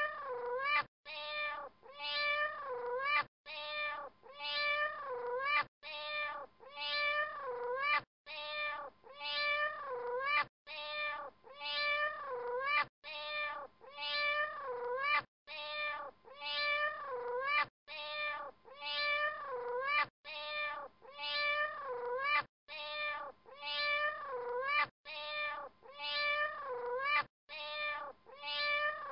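Cat meows repeating in an even, looped pattern: a run of several short meows that rise and fall in pitch, then a brief gap, about every two and a half seconds.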